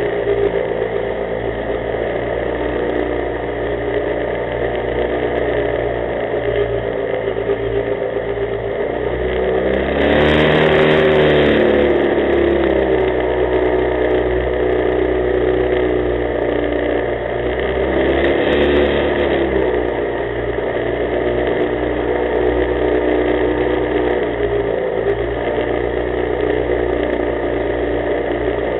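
An 11-foot jet boat's engine running steadily under way. It revs up and eases back twice, once about a third of the way through and again about two-thirds through.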